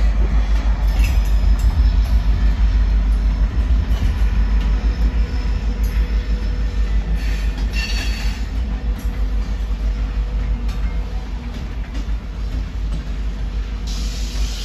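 Freight train of gondola cars loaded with rock rolling past: a heavy, steady rumble of steel wheels on the rails with scattered clicks, easing slightly toward the end. About eight seconds in, a brief high squeal rises over the rumble.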